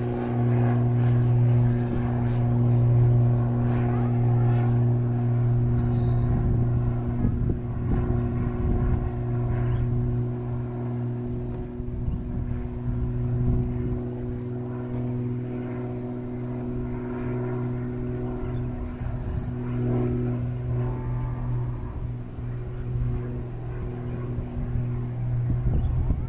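Steady engine hum held at one constant pitch, with uneven low rumbling coming and going from about six seconds in.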